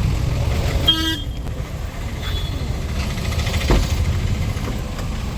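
Road traffic rumbling steadily, with a short vehicle horn toot about a second in.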